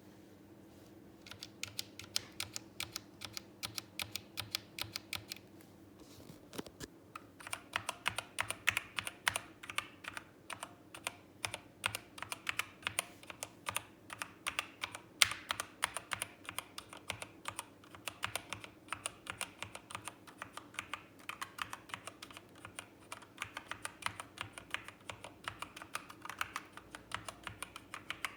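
Typing on a Zet Blade Pro keyboard with optical red switches. Rapid keystroke clicks start about a second in, pause briefly around six seconds, then come faster and denser.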